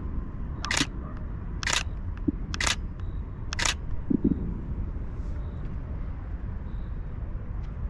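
Camera shutter firing four times, about one shot a second, taking the frames of a handheld panorama.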